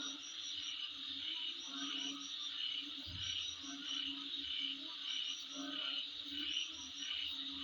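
Insects calling in a chorus: a steady high-pitched buzz with clusters of chirps repeating roughly once a second.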